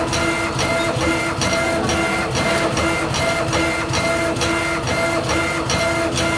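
A CNC laser engraver's head is raster-scanning back and forth, with a steady whine from the drive motors during each pass and a sharp tick at each reversal, about two or three times a second.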